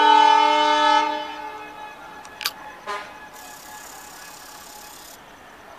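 Diesel locomotive horn sounding one loud blast of several pitches at once. It stops about a second in and dies away, followed by two brief sharp sounds and a faint hiss.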